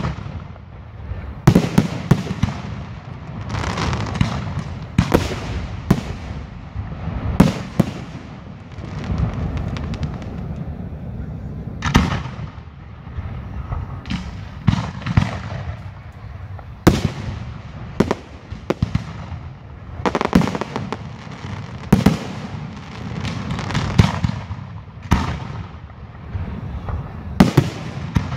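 Aerial fireworks shells launching and bursting in quick succession: a sharp bang every second or two, each followed by a low rumbling echo.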